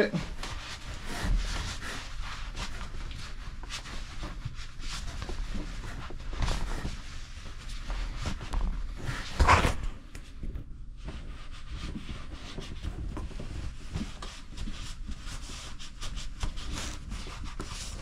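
A cloth rag rubbing and wiping excess grease off an electric motor's housing: irregular rustling and scraping with small clicks, and one louder knock about halfway through.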